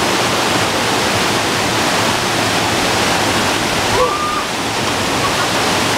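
A cascading waterfall: white water pouring over tiers of rock in a loud, steady rush.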